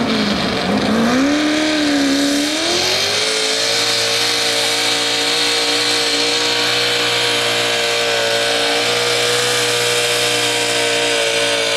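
Super stock two-wheel-drive pulling truck's engine, breathing through open exhaust stacks, running at full throttle under the load of the sled. Its pitch swings down and up for the first few seconds, then climbs and holds at steady high revs.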